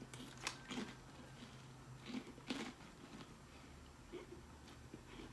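Someone chewing a mouthful of crunchy spicy chips (Takis and Hot Fries), with several crisp crunches, the loudest in the first three seconds.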